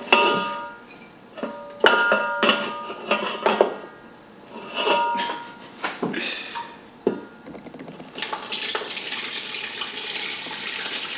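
Metal pot and utensils clanking several times, some strikes ringing briefly. About eight seconds in, water starts pouring steadily into the cooking pot to cover the oxtail.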